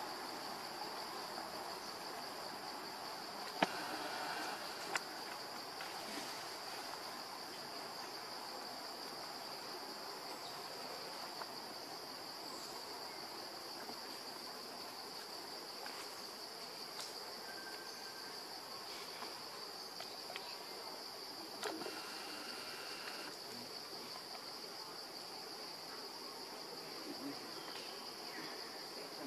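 Insects keeping up a steady high-pitched buzzing drone, with a few sharp clicks, the loudest about four seconds in.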